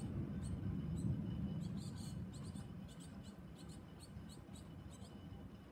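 Thunder rumbling and dying away over the first few seconds, with a scatter of faint short high chirps throughout.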